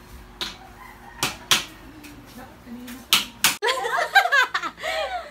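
Five sharp slap-like knocks spread over about three and a half seconds. Then, after a sudden break, young women laughing.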